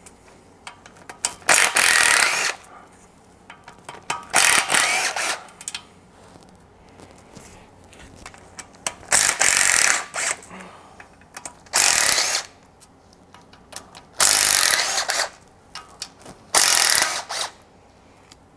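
Impact gun running in six bursts of about a second each, breaking loose threadlocker-coated bolts on the rear main seal plate of a Honda J30A4 V6 block. Small clicks of socket and bolts come between the bursts.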